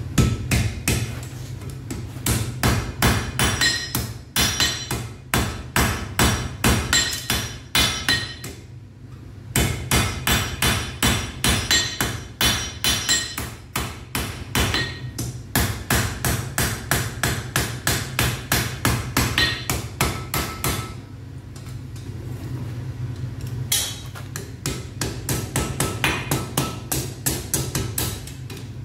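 Blacksmith's hammer striking hot iron on an anvil in a steady run of blows, about three a second, each with a short metallic ring. The hammering pauses briefly twice, and a steady low hum runs underneath.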